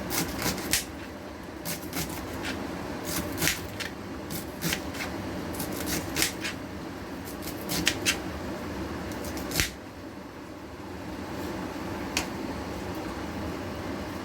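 Irregular light clicks and knocks, like things being handled in a kitchen, over a steady low hum; the clicks thin out after about two-thirds of the way through.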